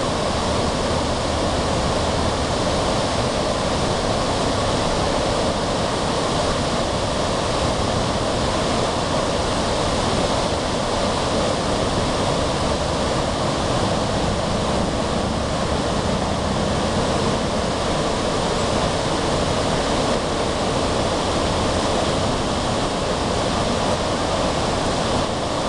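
Water of the Grand River flowing, a steady, even rush of noise that holds unchanged throughout.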